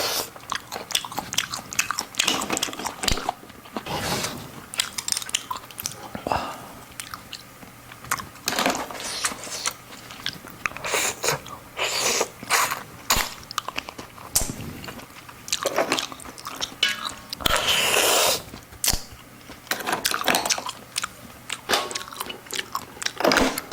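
A person chewing and biting shellfish close to the microphone: many short, wet clicks with a few longer bursts of noise between them.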